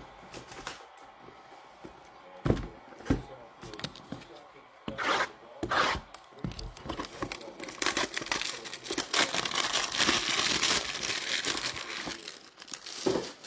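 Trading-card pack wrappers being torn open and crinkled. There are two sharp knocks a few seconds in, and dense tearing and crinkling through the second half.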